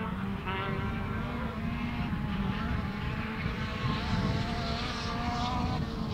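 Rally car engine under hard acceleration on a special stage, its pitch climbing through each gear and dropping back at the shifts.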